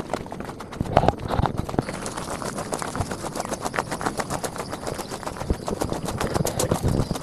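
Walking footsteps on a dirt and gravel footpath, a quick, continuous run of footfalls, with a louder thump about a second in.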